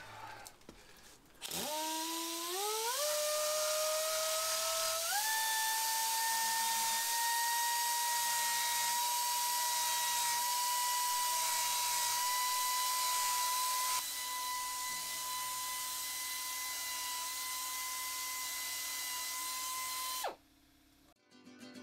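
Pneumatic stone polisher run off an air compressor, spinning up in steps about a second in to a steady high whine with a hiss of air. It runs a little quieter from about two-thirds of the way through, then shuts off near the end, its pitch dropping as it stops.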